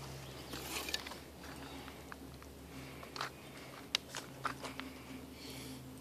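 Faint handling noise: a few sharp clicks and short rustles as the compound bow and the camera are moved about, over a faint low steady hum.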